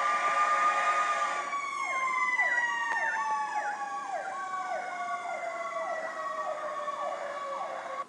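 Fire truck sirens: one long wail that slowly falls in pitch as it winds down, joined from about two seconds in by a second siren sweeping quickly downward over and over, about twice a second. The sound cuts off suddenly at the end.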